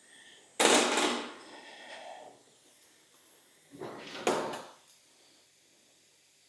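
Two short sliding, scraping handling noises, the louder one about half a second in and a weaker one about four seconds in.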